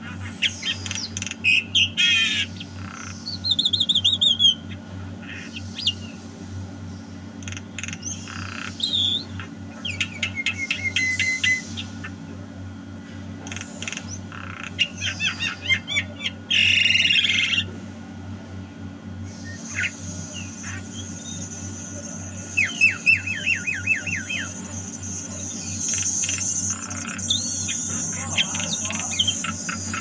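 Javan myna (jalak kebo) calling busily: a varied run of whistled notes, rapid trills of repeated notes and harsh squawks, broken by short pauses. A steady high-pitched hiss joins about two-thirds of the way through, over a constant low hum.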